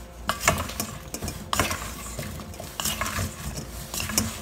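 Wooden spoon tossing oiled sweet potato chunks in a stainless steel bowl: irregular scrapes and knocks of the spoon and the chunks against the metal.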